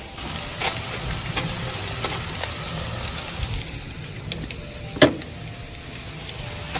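Chicken satay cooking on a gas grill: a steady sizzling hiss, with a few light clicks as skewers and foil trays are handled, and one sharp knock about five seconds in.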